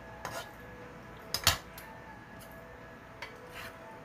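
Metal tongs and a ladle knocking and scraping against a frying pan as noodles are lifted out. There are a few separate clinks, the loudest pair about a second and a half in.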